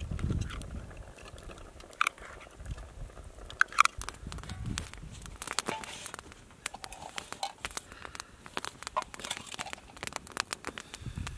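Metal spoon clinking and scraping in a small metal cook pot as food is stirred, with a few ringing taps near the start, over light crackling from a small campfire.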